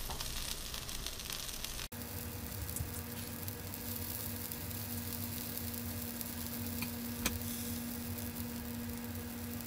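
Flatbread sandwich sizzling in melted butter in a frying pan, a steady soft hiss. After a brief cut about two seconds in, a low steady hum runs under the sizzle, with a small click near the end.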